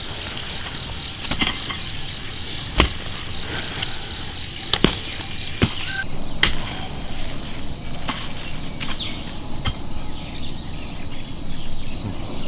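A digging tool chopping into soil with single sharp strikes at irregular intervals, roughly every one to two seconds, as potatoes are dug up. Underneath runs a steady, high insect drone that grows louder about halfway through.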